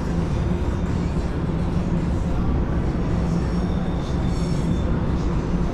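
Steady low rumble of heavy road traffic from the busy road below, with faint high tones coming and going over it.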